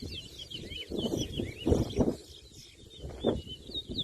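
Caged towa-towa seed finch singing a rapid, continuous twittering song of quick high chirps in a song race. A few low muffled bumps are heard, the loudest about two seconds in.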